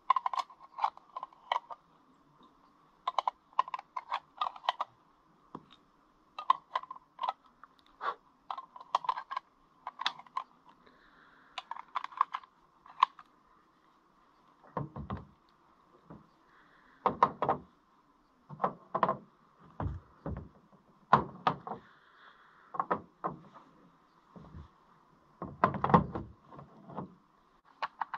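Gear being handled in and around a hard plastic case: quick runs of sharp clicks and small rattles, then, from about halfway, heavier knocks and thumps.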